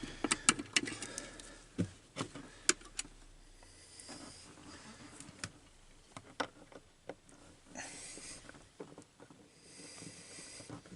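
Irregular light clicks and taps of small hand-held parts being handled, thickest in the first three seconds. Two soft breathy hisses come near the end.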